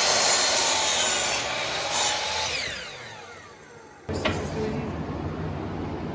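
Power saw cutting through a 2x4, then the saw's motor and blade spinning down with a falling whine once the cut is done. About four seconds in, a sharp click is followed by a steady low hum.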